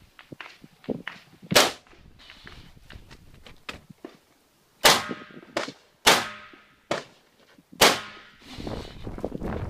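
Rifle shots in a practical-shooting stage: four loud single reports spaced irregularly over several seconds, with fainter sharp cracks in between.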